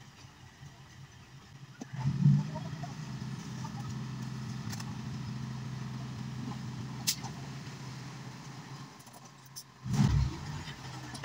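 Hino dump truck's diesel engine running steadily while its hydraulic hoist tips the loaded dump body. The engine comes in with a low surge about two seconds in, and there is another low surge near the end.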